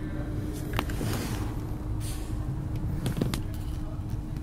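Steady low background rumble with a faint constant hum, broken by a few light clicks and taps, about a second in and twice a little past three seconds.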